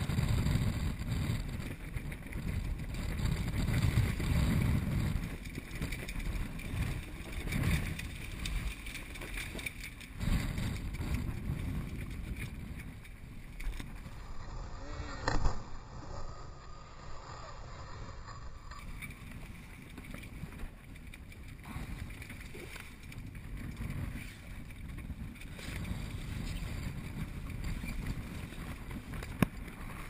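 Strong wind buffeting the microphone with the sea rushing along a sailing yacht's hull, in gusts. There is a single sharp knock about fifteen seconds in.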